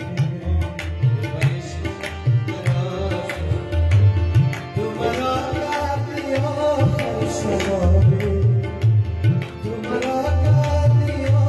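Tabla drumming in a quick, dense rhythm under a harmonium melody, with a male voice singing in places.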